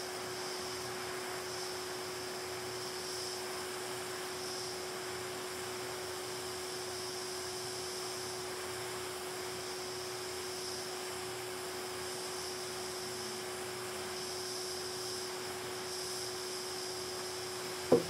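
Hot air rework station blowing over a phone's display connector to melt its solder: a steady hum with an even airflow hiss. A sharp click at the very end.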